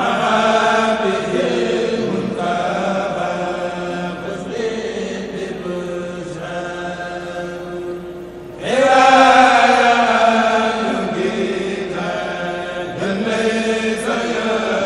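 A kourel of men chanting a Mouride khassida in unison, unaccompanied, in long sustained phrases. A louder new phrase comes in just past halfway, and another near the end.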